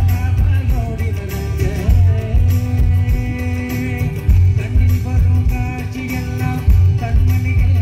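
Live band playing loud music: a sung melody with guitar and keyboards over a heavy, regular bass beat.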